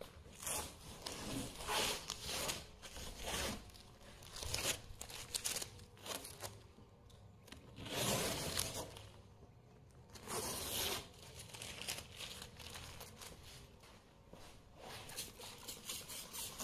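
Masking tape being peeled off a car's painted bodywork in several separate tearing pulls, with the used tape crinkling in the hand.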